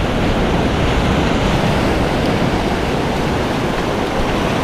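Ocean surf breaking and washing up the beach in a steady rush, with wind noise on the microphone.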